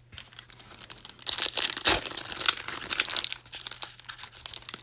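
Foil wrapper of a Panini Prizm trading-card pack being torn open and crinkled by hand. The crackling starts faintly, grows loud about a second in, with one sharp crackle near two seconds.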